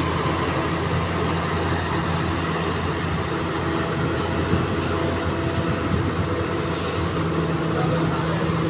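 Komatsu PC450LC excavator's diesel engine running steadily with an even low drone while it works over a loaded dump truck.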